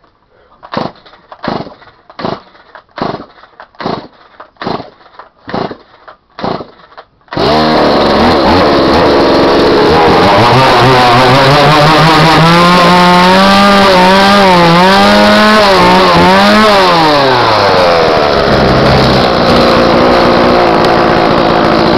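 Stihl MS170 two-stroke chainsaw with a muffler mod being pull-started. About nine pulls on the cord come about a second apart before it catches around 7 seconds in. It then runs loud, revving up with a wavering pitch, and drops back to a steady idle near the end. The running is rough, which the owner puts down to low compression.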